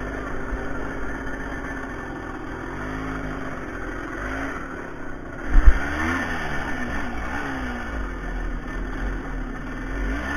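Off-road vehicle engine running and revving up and down several times, with a loud low thump a little past halfway.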